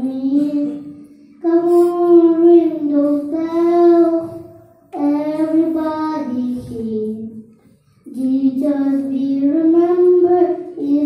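A young boy singing a Christmas song unaccompanied into a handheld microphone, in held phrases with short breaks between them.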